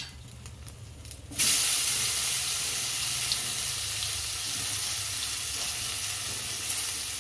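Tomato dropped into hot oil with whole spices in a kadai, a loud sizzle starting suddenly about a second and a half in and frying on steadily.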